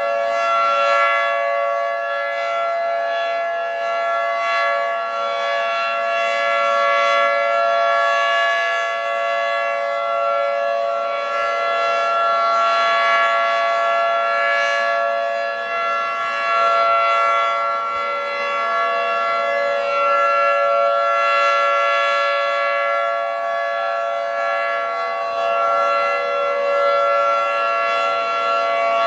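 Federal Signal 2T22 dual-tone rotating outdoor warning siren sounding a steady, unwavering chord: the Alert (steady) signal of a tornado siren test. Its loudness swells and eases every several seconds as the siren head turns.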